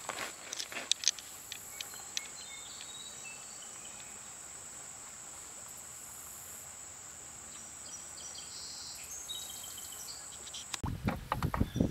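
Steady high-pitched insect trill over faint outdoor ambience, with a few light clicks in the first two seconds. Near the end the trill cuts off suddenly, and a gusty rush of wind on the microphone takes over.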